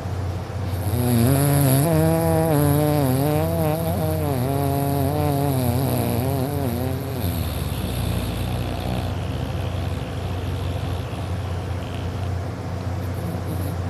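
A person snoring loudly: a long snore with a pitch that wavers up and down for several seconds, then gives way to a lower, rougher rumble of breath.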